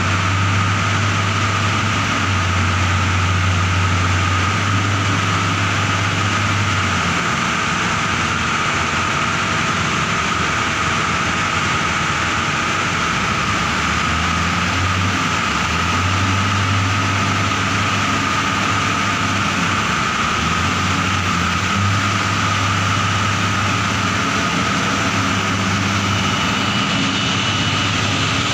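Engine of a heavy 35-tonne forklift running as the machine drives along carrying a steel coil, with a low drone that drops away and returns several times and a steady whine above it.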